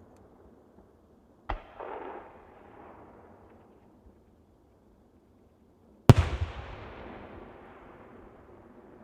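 Two aerial firework shells bursting: a smaller bang about one and a half seconds in with a short tail, then a much louder bang about six seconds in that echoes and slowly dies away.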